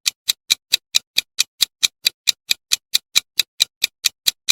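Countdown-timer clock ticking sound effect, a steady fast tick of about four to five ticks a second.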